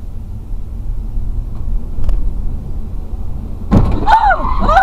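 Steady low rumble of a car driving, heard from inside the cabin. About three and a half seconds in, loud high-pitched cries from a voice in the car cut in.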